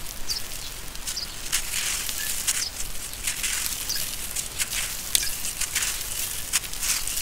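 A lump of dry sand-and-cement mix crunching and crumbling in bare hands, with grit and dust pouring and pattering onto gritty ground in a run of uneven crackly crunches.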